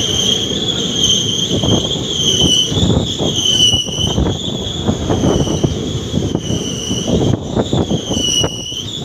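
Indian passenger train slowing into a station, heard from an open coach door: a rumble and clatter of wheels on rail beneath a steady, slightly wavering high squeal from the running gear as it brakes.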